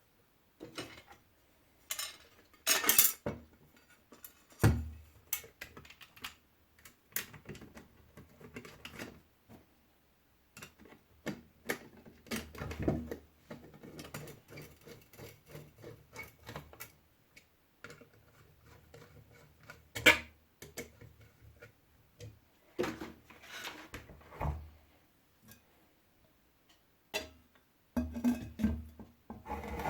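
Irregular clicks, knocks and light clinks of a small neon novelty lamp being reassembled by hand: hard lamp parts and its glass globe handled and fitted together. A few sharper knocks stand out about three seconds in and about twenty seconds in.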